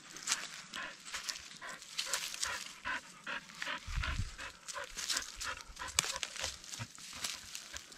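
A dog panting rapidly and rhythmically close by, about three or four breaths a second, over footsteps in dry grass and loose stones, with a low bump about halfway through.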